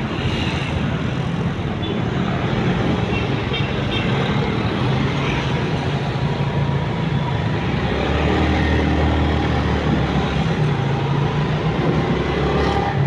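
Riding a motorcycle in city traffic: the bike's engine hums steadily under a wash of road and wind noise, with other vehicles around. A deeper, louder rumble comes in about eight seconds in and lasts a couple of seconds.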